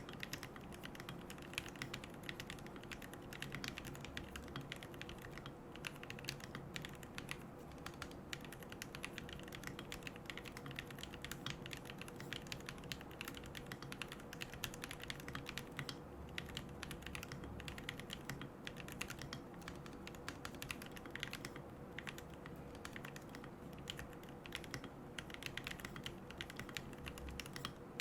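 Continuous typing on a QK75N mechanical keyboard with Gateron Moon Landing switches, MilkyWay Poker keycaps and a carbon plate with no foam: a steady, dense stream of key clacks.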